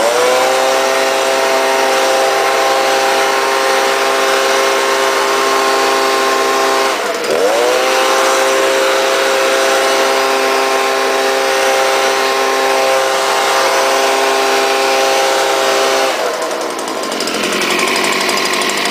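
Stihl BG 86 leaf blower's two-stroke engine revved up to full throttle and blowing, running strong with its clogged spark arrestor screen now cleaned. It eases off briefly about 7 seconds in and revs straight back up, then drops back toward idle near the end.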